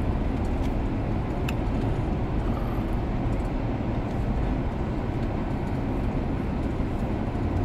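Steady rumble of a moving car, heard from inside the cabin.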